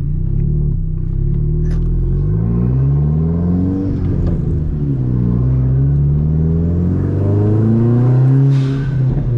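Hyundai Genesis Coupe's turbocharged 2.0-litre four-cylinder accelerating hard through the gears, heard from inside the cabin: the engine note climbs, drops back at each upshift and climbs again, with a short burst of hiss near the end. The engine is not making enough boost to crack the wastegate open.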